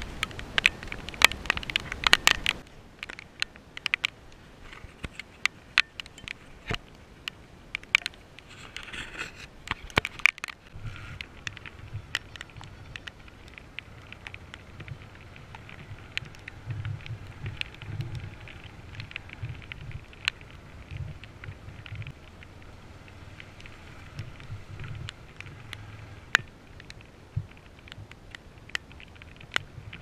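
A brief loud rush of noise, then scattered sharp crackling clicks on the camera's microphone; about ten seconds in a Bajaj Pulsar's single-cylinder engine comes in as a low, steady hum under the clicks.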